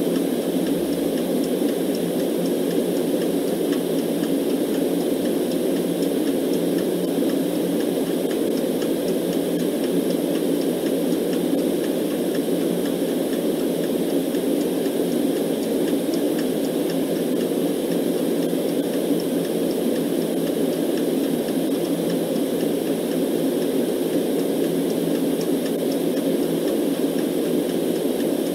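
Steady, muffled white noise, heaviest in the low-middle range, with a clock ticking faintly over it.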